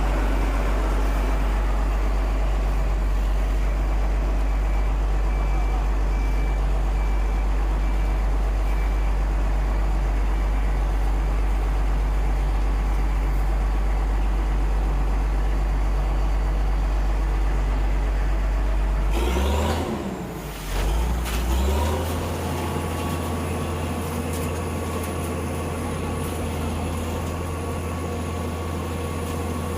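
Heavy diesel engine running with a steady, low drone. About 20 seconds in, its note shifts, dipping and gliding briefly as the engine speed changes. It then settles into a steady, slightly higher hum with a faint high whine over it.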